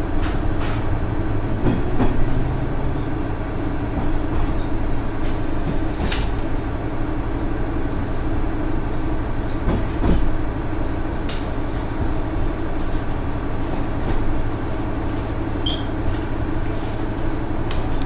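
Diesel railcar running along the line, heard from inside the carriage: a steady drone of engine and rail noise, with a few sharp clicks.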